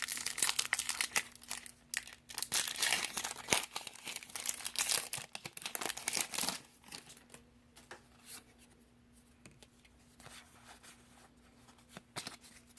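Foil Pokémon booster pack wrapper being torn open and crinkled, dense crackling for about the first seven seconds, then softer, scattered crinkles as the pack is handled.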